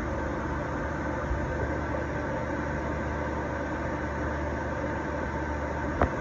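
Steady hum of a milling machine's VFD-driven spindle motor running at constant speed, with one short sharp click near the end.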